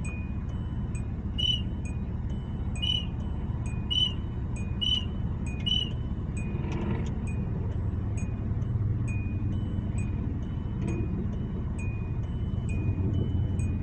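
Car wash pay-station keypad beeping as a code is keyed in: five key beeps in the first six seconds. Under them a short electronic beep repeats about once a second throughout, over a car engine idling.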